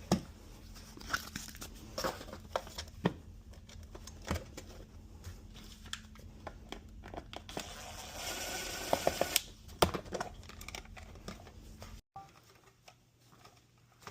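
Crinkling and tearing of material being handled, with scattered sharp knocks and clicks and a denser rustle about eight seconds in. After an abrupt break about twelve seconds in, it goes much quieter, with a faint low hum.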